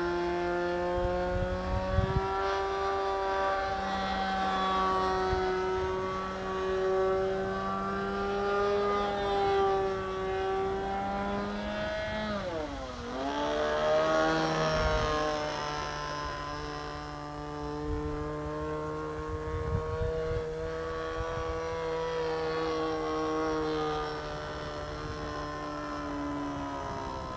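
RC Phoenix Edge 540 model airplane's engine with a can muffler running in flight: a steady buzzing note that dips sharply in pitch about halfway through and then climbs back and holds steady again.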